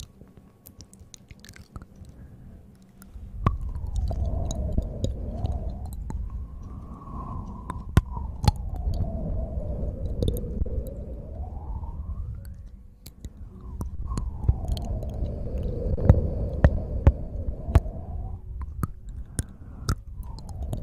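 Hands rubbing and cupping close over a sensitive ASMR microphone: a low rumbling rustle with scattered sharp crackles, and a hollow tone that sweeps up and down as the hands shift. It starts about three seconds in, dips briefly around thirteen seconds, then picks up again.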